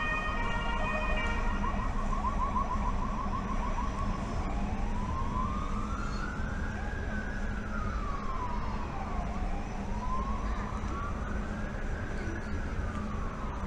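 Emergency vehicle siren: a fast warbling yelp for the first few seconds, then a slow wail that rises and falls twice. A low steady rumble runs underneath.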